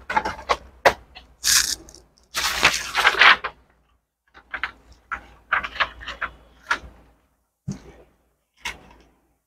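Irregular rustling, clicks and knocks from a newspaper being laid on the scanner glass of a Canon imageCLASS MF3010 laser multifunction printer and the printer being handled as a copy is started, with a denser stretch of rustling and clatter a few seconds in.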